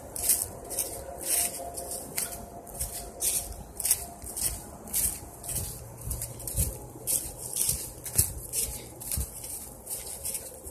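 Footsteps on dry fallen leaves, rustling with each step at a brisk walking pace of about two steps a second.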